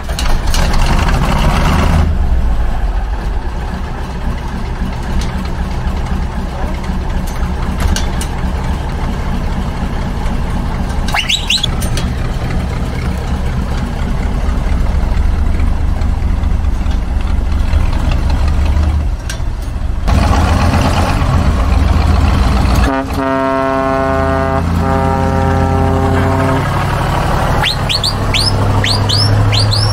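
The diesel engine of a 1978 ex-German-army MAN 4x4 truck runs loudly as the truck sets off and drives away. About three-quarters of the way through, the horn is held for about three seconds as a steady multi-note blast. Birds chirp near the end.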